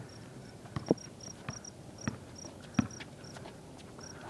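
Crickets chirping in short, high, repeated pulses, with a few sharp thuds of a basketball bouncing on concrete pavement, the clearest about a second in and near three seconds in.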